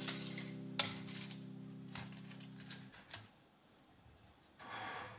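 Knife and fork clinking and scraping against a ceramic plate while cutting through a fried filo roll, with a few sharp clicks. A steady low hum underneath stops about three seconds in.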